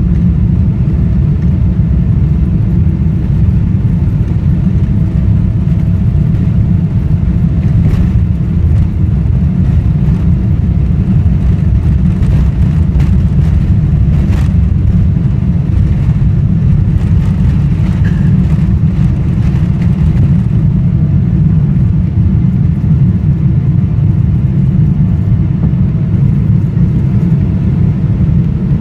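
Boeing 777-300ER's GE90 engines at takeoff thrust, heard from a cabin seat over the wing: a loud, steady low rumble through the takeoff roll. There are a few light clicks about eight and fourteen seconds in. The hiss above the rumble dies away about twenty seconds in, as the wheels leave the runway.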